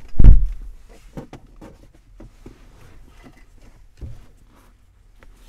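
A car door shuts with a heavy, deep thud just after the start, heard from inside the cabin. It is followed by soft rustling and small knocks as someone shifts in the seat, and a lighter thump about four seconds in.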